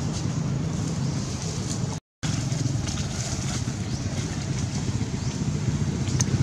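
Steady rumble of background traffic, broken by a moment of silence about two seconds in.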